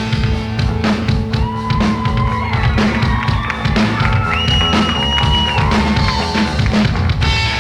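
Live rock band playing an instrumental break: drums keeping a steady beat under bass, with a lead line of long held notes that slide up and down in pitch.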